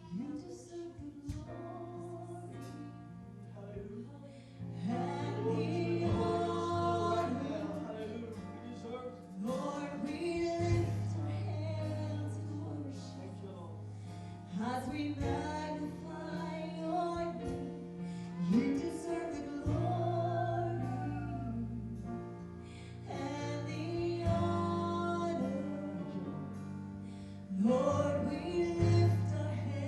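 Live worship music: singers over a band's long, sustained chords, the chords changing every few seconds.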